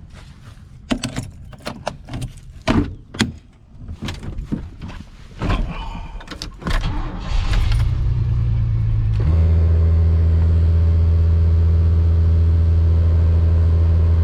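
Jangling and clicking handling noises, then a steady mechanical hum that starts about nine seconds in and holds at an even pitch.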